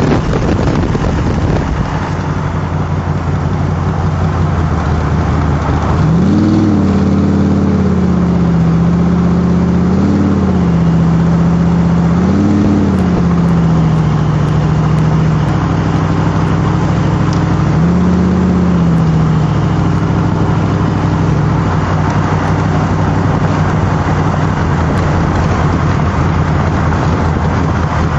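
Cobra replica's V8 engine running at road speed, with heavy wind rush over the open cockpit. Several times in the middle the engine note rises and then falls back as the throttle is opened and eased.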